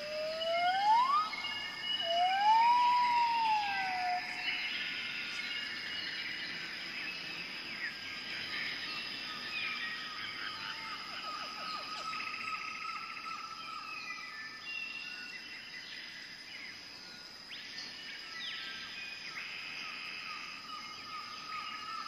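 Tropical forest ambience. Near the start there are two loud whistled calls, the first rising steadily and the second rising then falling, over a steady high insect drone and many short bird chirps and trills.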